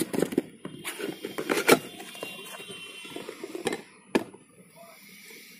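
Cardboard box of Milton Treo glass tumblers being opened and handled: rustling and scraping of cardboard with many small knocks and clicks, and a sharp tap a little after four seconds as a glass tumbler is lifted out.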